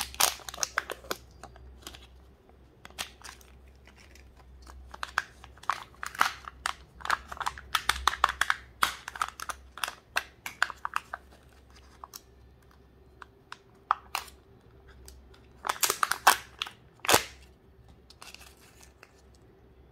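Foil wrapping of a Kinder Joy egg crinkling and its foil seal being peeled off the plastic capsule by hand, in clusters of sharp crackles with quieter gaps between; the loudest crackles come about three-quarters of the way through.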